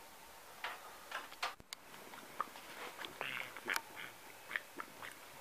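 Faint handling noise: scattered soft clicks and short rustles as the camera and soft toys are moved over bedding, with a slightly longer rustle about three seconds in.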